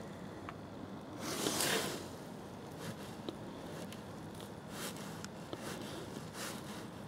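Short rustling swishes over a faint steady hiss, the longest and loudest about a second and a half in, with a few fainter, briefer ones later.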